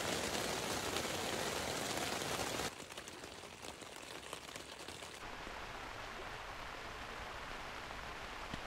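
Rain falling on a tent, a steady hiss heard in three stretches cut together: louder for the first two and a half seconds or so, quieter after that.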